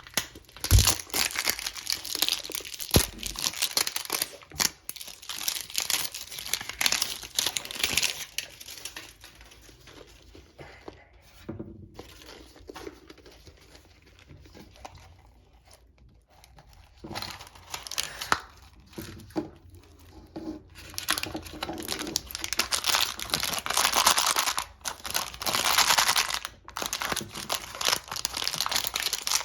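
Plastic wrapping crinkling and tearing as a Mini Brands surprise ball and its miniature toys are unwrapped by hand, busy at first, quieter for several seconds in the middle, then busy again.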